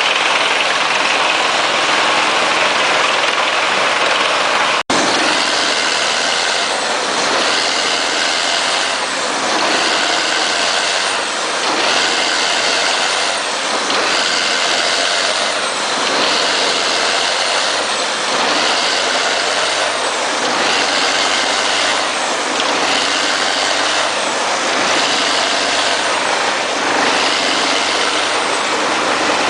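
Diesel-driven forest drum wood chipper running under load, a steady loud mechanical noise that swells and eases about every two seconds. It cuts out for an instant about five seconds in.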